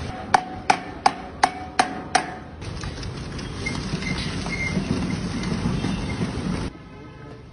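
Six quick metallic knocks, about three a second, each with a short ring, as the large steel barrel is set into its metal stand. Then a steady low rumble and clatter as the barrel is turned on the stand.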